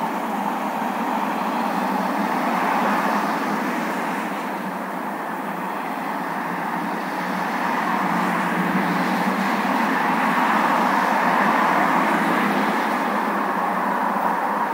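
Steady outdoor background noise with no distinct events, swelling and easing slowly over several seconds.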